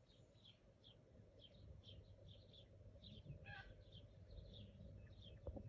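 Faint bird chirping: a run of short, high chirps, about two a second, over a low steady background hiss.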